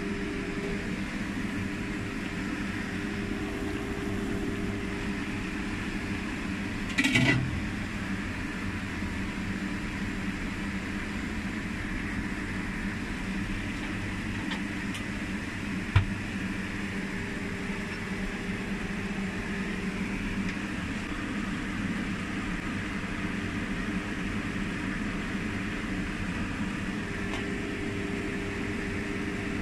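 A steady mechanical hum with a low drone and an even hiss, under a wok of fish soup at a rolling boil. A brief louder ringing sound comes about seven seconds in, and a single sharp knock about sixteen seconds in.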